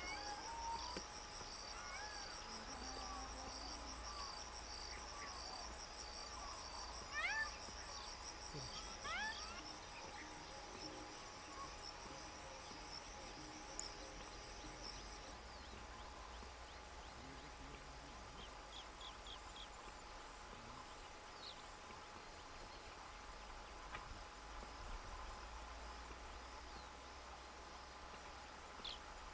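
Rural field ambience of insects trilling in steady high tones, with a second, pulsing insect call that stops about halfway through. A few short rising chirps sound about a quarter of the way in.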